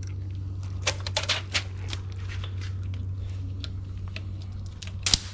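Broken engine parts being handled during a teardown of a blown 6.0 LS V8: a cluster of light metallic clicks and clinks about a second in and one sharper click near the end, over a steady low hum.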